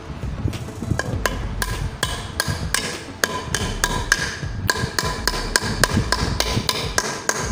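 Claw hammer driving nails through a steel dish-mount base plate into a wooden plank. It strikes repeatedly at about three blows a second, and each blow has a short metallic ring.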